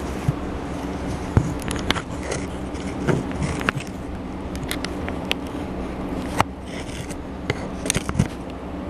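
Scattered sharp clicks, knocks and scrapes of small parts being handled, over a steady low hum.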